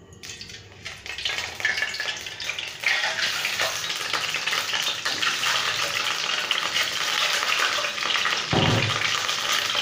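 Whole boiled eggs sizzling in hot mustard oil in a steel kadai, the frying getting louder over the first few seconds as the eggs go in one by one, then a steady loud sizzle. A brief low thump comes near the end.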